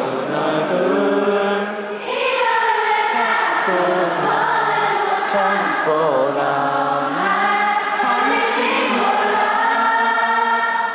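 A large concert crowd of fans singing a slow pop song together in unison, many voices blending like a choir, in phrases that follow the lyrics.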